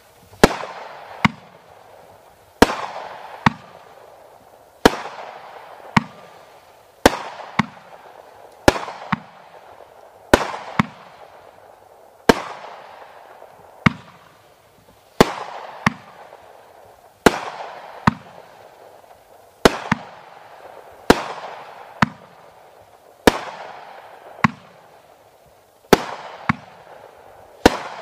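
World Class Fireworks 'America's Pastime' multi-shot firework cake firing shot after shot: sharp reports about once a second, sometimes two close together, each followed by a fizzing of sparks dying away.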